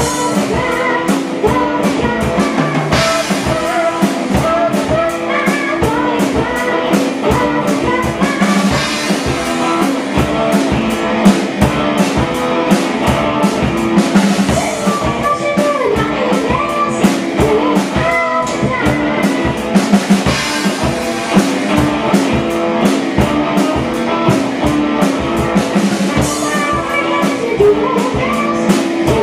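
Amateur rock band playing live: two electric guitars through amplifiers and a Pulse drum kit keeping a steady beat, with a singer on a handheld microphone.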